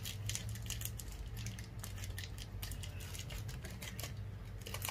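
Crinkly plastic wrapper of a Reese's peanut butter cup packet being torn and picked open by hand, a rapid run of small crackles and clicks.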